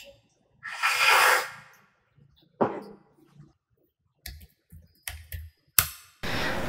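Separate key clicks, a handful of keys pressed one at a time on a Logitech K380 wireless keyboard, after a short rustle about a second in. Music starts near the end.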